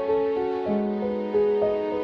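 Slow, sad solo piano music: single notes struck about every half second, ringing on over held lower notes.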